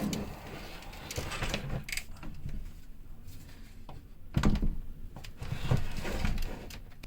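Scattered knocks, clicks and rustling of things being handled, with a heavier thump about four and a half seconds in.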